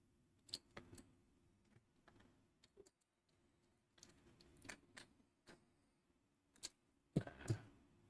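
Faint, scattered small clicks and taps of hand electrical work: a wire's crimp terminal pushed into a plastic pilot lamp's screw terminal and a small screwdriver tightening it. A couple of slightly louder knocks come near the end.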